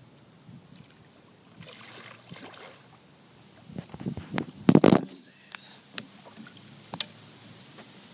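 Water sloshing and splashing, then a burst of loud thumps and knocks about four to five seconds in, followed by a few sharp clicks.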